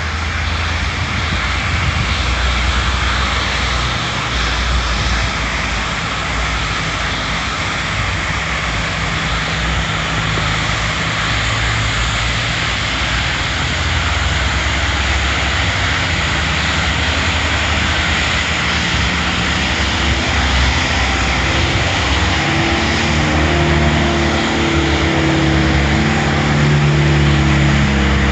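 Steady road traffic on a wet, snowy road: tyre noise and engines, with a louder engine drone building over the last several seconds.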